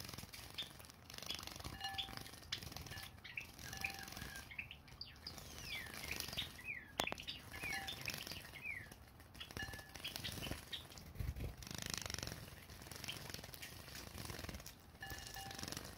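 Java sparrows bathing in shallow water dishes: wings fluttering and splashing the water, with short chirps throughout and a run of quick sweeping calls in the middle. One sharp click sounds about halfway through.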